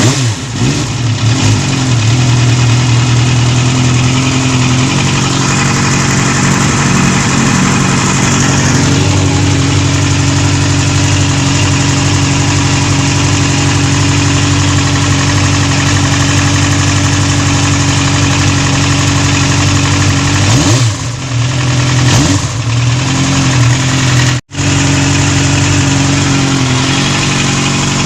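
Yamaha Zeal 250 inline-four engine idling steadily and evenly just after its carburettors have been synchronized, the idle now settled. There are two quick throttle blips about three quarters of the way through.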